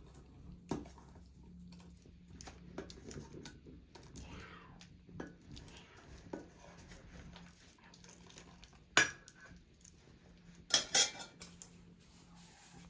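Steel ladle stirring, scraping and clinking in a steel pot of yogurt kadhi, with a few sharper metal clanks about nine and eleven seconds in.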